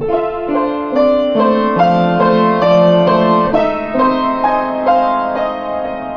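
Piano-like keyboard played: a run of struck notes and chords, changing about twice a second, each ringing on as it fades.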